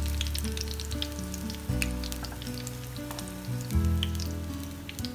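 Oil sizzling and crackling around vegetable spring rolls shallow-frying in a pan, with many small pops. Background music with held low notes that change every couple of seconds sits under it.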